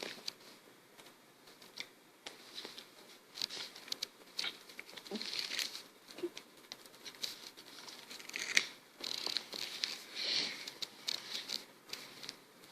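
Warheads sour candy wrapper crinkling and tearing in uneven bursts of crackles as it is unwrapped.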